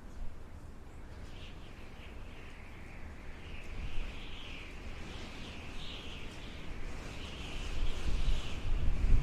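Howling wind: a wavering high whistle over a low rumble, the rumble easing off and then building into a strong gust near the end.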